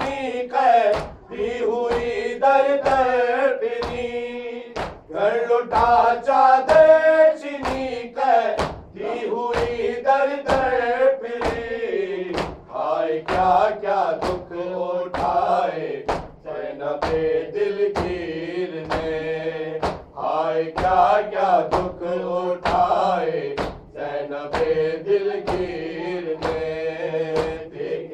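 A group of male voices chanting a noha lament in unison, with a steady beat of chest-beating (matam) about twice a second.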